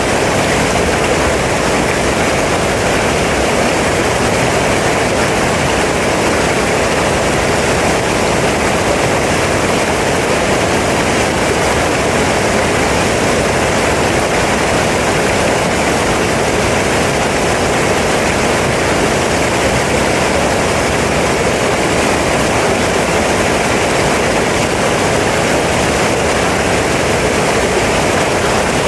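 Rushing water of a mountain stream, a dense steady rush with no pauses or change.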